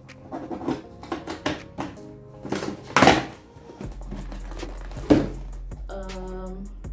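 A cardboard box being slit open and its flaps pulled apart: short scrapes, rustles and knocks of cardboard, two of them louder about three and five seconds in, over background music.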